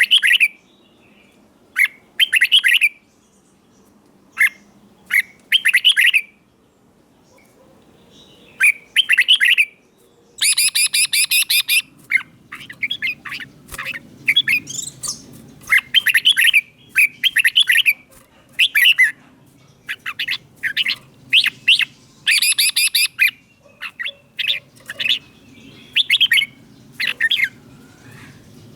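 Red-whiskered bulbul singing: short, bright whistled phrases repeated every second or two, with a rapid rattling run of notes about ten seconds in.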